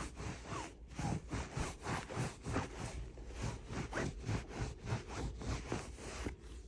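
A cloth rubbed briskly back and forth over woven fabric sofa upholstery to wipe off dust, a steady scratchy swish of short strokes, about three a second.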